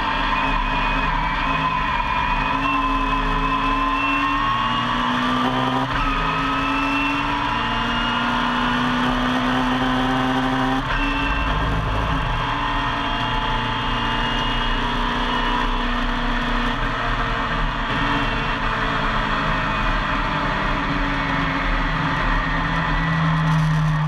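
Classic Mini race car's tuned A-series engine, heard from inside the cabin under hard acceleration. The pitch climbs through the revs with gear changes about six and eleven seconds in, then holds a steadier note, dropping to a lower note near the end.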